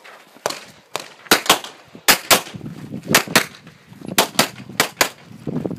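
Pistol fired in quick double taps: about five pairs of shots, the two shots of each pair a fraction of a second apart and the pairs roughly a second apart.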